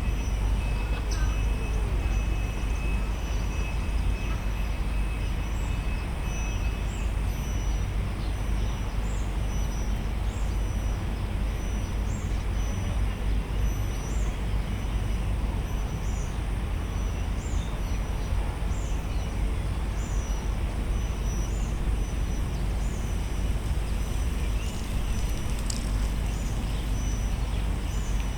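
Outdoor park ambience: a steady low rumble under an even haze of background noise. A short, high chirp repeats about once a second, starting a few seconds in, and a thin high steady tone fades out about six seconds in.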